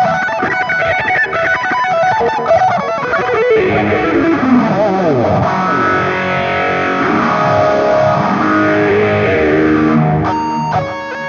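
Electric guitar played through an M-VAVE TANK-G multi-effects pedal: fast picked runs for the first few seconds, then sliding, bending notes that ring over one another. About ten seconds in, the tone changes abruptly to held, ringing notes.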